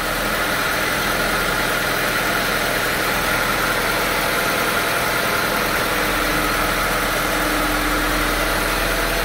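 Car engine idling steadily with a newly installed 320-amp Ohio Generator high-output alternator on its belt.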